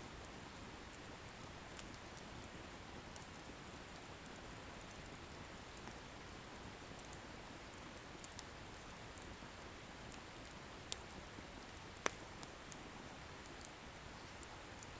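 Wood bonfire burning with a soft steady hiss and sparse sharp crackles and pops from the firewood, a few louder pops in the second half.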